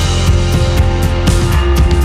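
Background music: a rock-style track with drums, a heavy bass and a steady beat.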